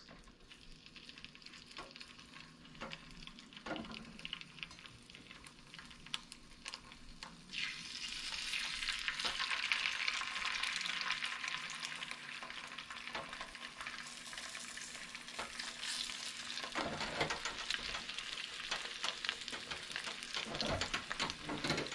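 Steelhead trout fillets sizzling skin-side down in hot vegetable oil in a nonstick frying pan. The sizzle is faint at first and swells to a steady, louder hiss about seven or eight seconds in as more fillets go into the pan.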